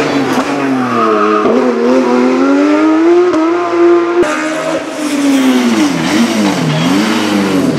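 Racing car engines at full throttle. First a Porsche 911 Cup car's engine climbs in pitch, broken by quick upshifts. Then a single-seater formula car's engine drops in pitch with sharp blips as it downshifts and brakes for a corner.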